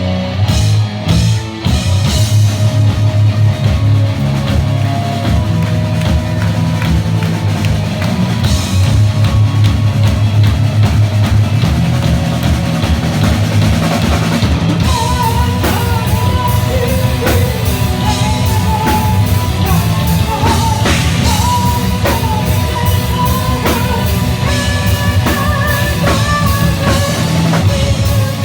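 Rock band playing live, with a full drum kit and electric guitars. A high, wavering melody line comes in about halfway through.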